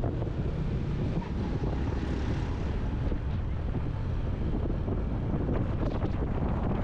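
Wind buffeting the microphone on a moving motorbike, a steady low rumble with the bike's running underneath.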